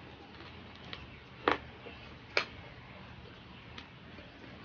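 Close-up eating sounds of someone chewing a mouthful of rice and fried dried fish: a few short, sharp mouth clicks and smacks, the two loudest about a second and a half and two and a half seconds in.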